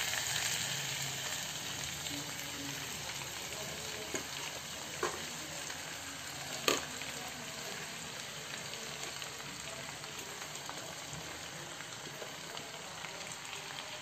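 Diced potatoes and fresh fenugreek leaves frying in a kadhai, a steady sizzle that eases off slightly. A few short sharp clicks sound about four, five and seven seconds in.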